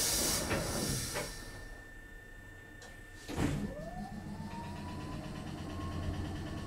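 Kotoden 1070 series electric train car: a burst of air hiss fading away, then, about three and a half seconds in, a clunk as a machine under the car starts up. Its whine rises and levels off into a steady tone over a low hum.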